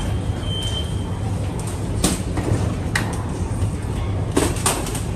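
A metro train's sliding doors opening with a knock and a short high beep, over the steady hum of the stopped train. A few sharp clacks follow as a passenger wheels a luggage trolley out over the door threshold.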